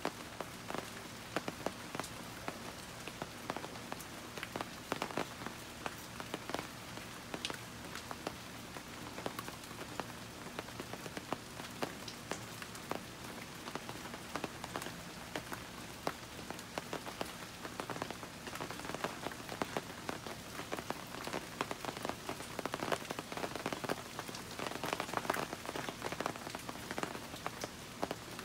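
Steady rain falling, with many sharp drops striking close by; it grows a little heavier past the middle.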